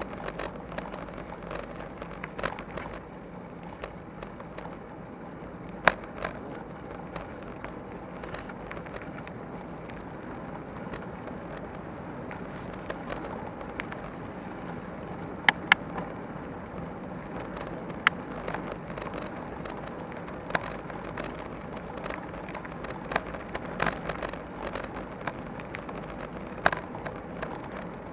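Bicycle tyres rolling over a gravel path, heard through a bike-mounted camera: a steady rumbling hiss of tyres and vibration, broken by many sharp clicks and knocks as the bike jolts over stones and bumps.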